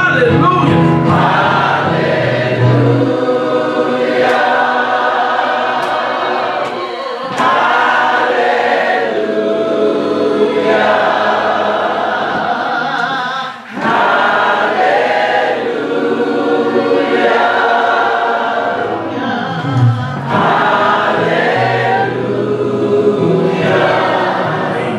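A gospel choir singing in phrases, with brief breaks between lines.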